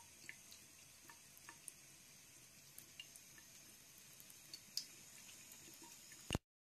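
Faint trickle of a thin stream of tap water running into a bathroom sink, with scattered small drips and ticks; it cuts off suddenly near the end.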